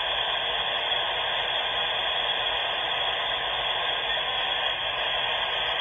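Dial-up modem handshake heard through the modem's speaker: a steady, even hiss of data noise with a thin steady tone in it, as the modem negotiates its connection over the phone line.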